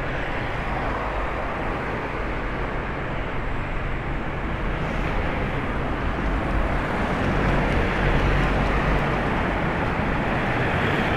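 Cars driving along a narrow town street: a steady traffic noise that grows a little louder about eight seconds in.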